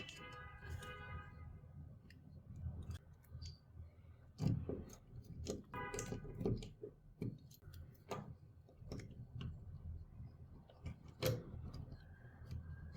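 Irregular small clicks and taps of hard plastic parts of a computer mouse being handled and worked on.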